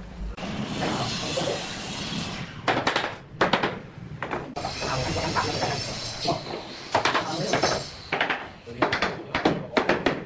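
Bamboo floorboards rubbing and scraping as they are handled and fitted, broken by sharp wooden knocks. A quicker run of hammer taps on the boards comes in the last few seconds.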